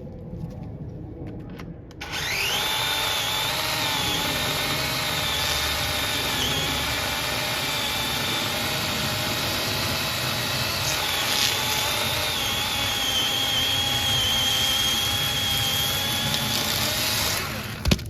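Dewalt 20V cordless electric chainsaw cutting through a 7-inch cherry log: the motor whine rises quickly as it spins up about two seconds in, runs steadily with its pitch sagging briefly under load a couple of times, and stops shortly before the end.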